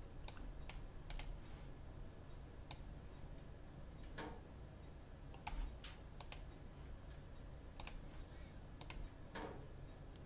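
Faint, scattered clicks of a computer mouse and keyboard, several in quick pairs, over a low steady hum.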